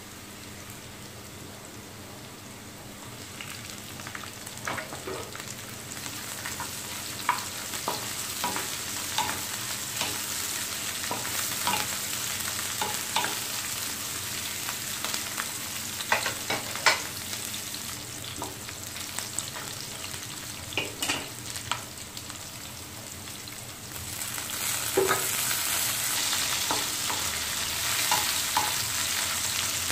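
Carrot strips and diced green capsicum frying in hot oil in a metal pan, a steady sizzle, with scattered clicks and scrapes of a plastic spoon stirring them against the pan. The sizzle grows louder a few seconds in and again about three-quarters of the way through.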